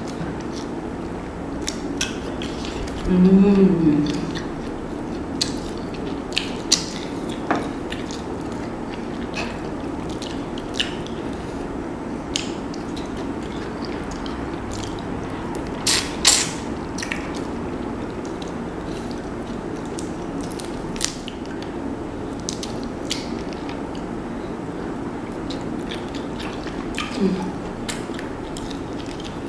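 Close-up eating sounds of a person eating sauce-coated boiled shrimp with her fingers: scattered sharp wet clicks and smacks of chewing, handling and dipping the shrimp in sauce. A brief hummed "mm" comes about three seconds in and again near the end.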